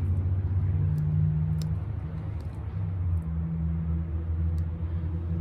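A steady low mechanical hum, like a running motor, with a few faint light clicks.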